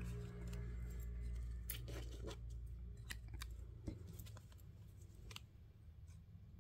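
Scattered light clicks and taps of paper pieces and a plastic glue bottle being handled, over a low hum that fades about four seconds in.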